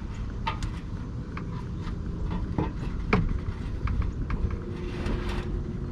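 A new oil filter being spun on and hand-tightened, with light scattered clicks and scrapes over a steady low background rumble.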